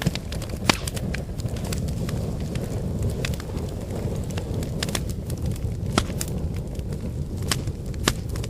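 Wood fire burning: a steady low rush of flames with irregular sharp crackles and pops of burning firewood, a few louder pops standing out.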